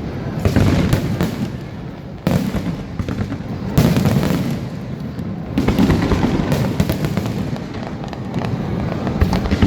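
Aerial fireworks display: shells bursting in sudden booms every second or two, over constant crackling and rumbling.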